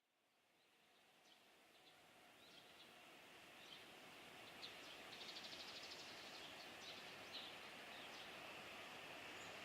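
Faint outdoor ambience fading in, with small birds chirping on and off and a brief rapid trill about five seconds in. Under them a low hiss slowly grows louder: the distant approach of a freight train hauled by an EH500 electric locomotive.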